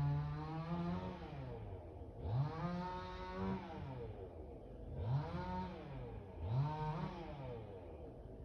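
Two-stroke chainsaw engine revved four times, each rev rising quickly in pitch, holding briefly, then falling back toward idle.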